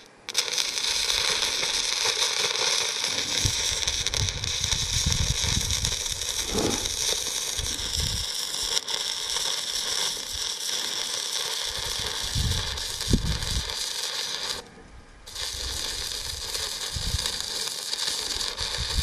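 SUZUKID IMAX80 arc welder running a stick-electrode bead: the arc sizzles and crackles steadily. The arc breaks off for under a second about three-quarters of the way through, then restrikes and carries on.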